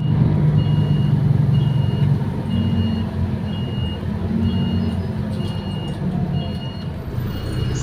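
City bus engine running with a steady low hum, while an electronic warning beep inside the bus repeats about once a second, each beep short and high-pitched.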